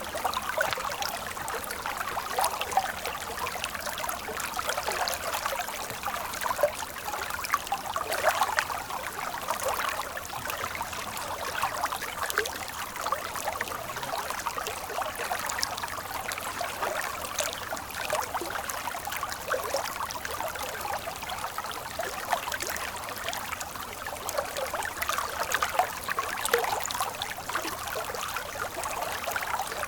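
Stream water flowing and trickling steadily, a continuous rush speckled with many small quick splashes and no deep rumble.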